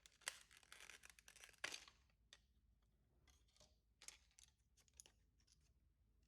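Packaging being handled: about a second and a half of crinkling and tearing, like wrap or paper being pulled off, then scattered light clicks and rustles.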